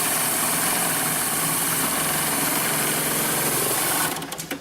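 Heavy-duty 80700C1H bulk-bag (FIBC) industrial sewing machine running at a steady speed, a loud even mechanical drone with a constant hum, stopping about four seconds in.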